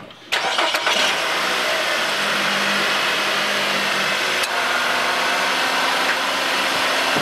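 2008 Nissan Altima engine starting suddenly about a third of a second in and settling into a steady idle, the new serpentine belt driving the crank and accessory pulleys, running smoothly and quietly.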